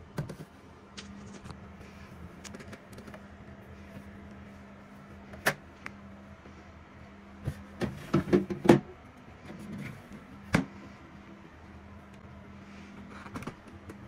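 Plastic clicks and knocks as a clear plastic tray and the drawer of a refrigerator freezer compartment are handled and slid. The loudest is a quick run of knocks about eight to nine seconds in, and a steady low hum runs underneath.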